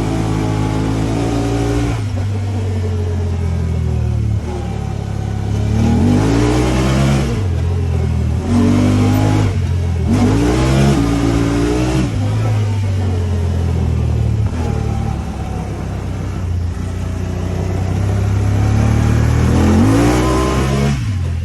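Honda Talon 1000R side-by-side's parallel-twin engine running under load and revving, its pitch rising in a sweep several times over a steady drone.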